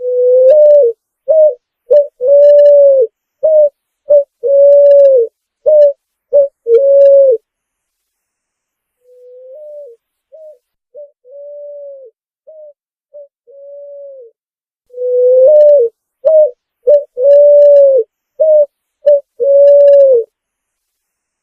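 Picazuro pigeon singing: a phrase of low coos, short notes mixed with longer drawn-out ones, repeated three times, the middle phrase much fainter than the other two.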